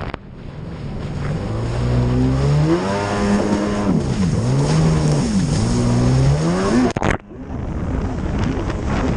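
Racing personal watercraft's engine at high revs. Its pitch climbs, dips twice as the throttle is eased and climbs again, over the rush of water and wind. The sound drops out suddenly and briefly about seven seconds in.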